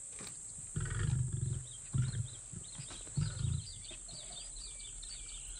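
Three short bouts of deep, rumbling animal grunts, with small birds chirping through the second half.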